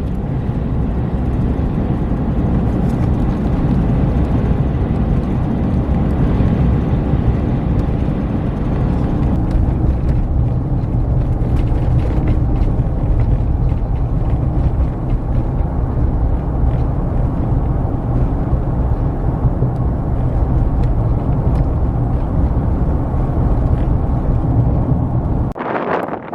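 Strong wind buffeting the microphone with a heavy, steady rumble, cutting off abruptly near the end.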